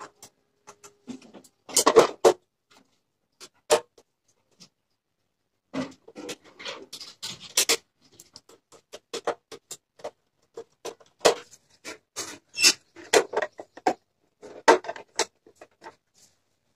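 Screwdriver and fingers clicking, tapping and scraping on the metal case and plastic keys of an old stereo cassette player as screws and the front parts are worked. The clicks and knocks are irregular, some in quick clusters, with quiet gaps between.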